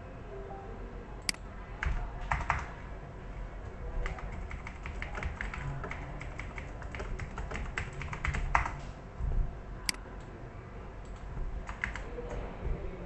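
Typing on a computer keyboard: a run of rapid key clicks in the middle, with a few separate sharper clicks.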